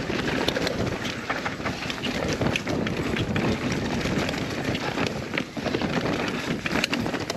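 Mountain bike rolling fast down a forest singletrack: tyres crunching over dry leaf litter and dirt, with frequent clicks and rattles from the bike over bumps and wind rushing on the microphone.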